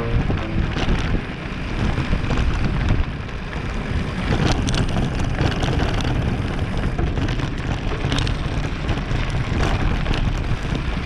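Wind buffeting the microphone of a camera on a moving mountain bike, over the steady rumble of tyres rolling on a dirt track, with a few sharp knocks from the bike or gravel.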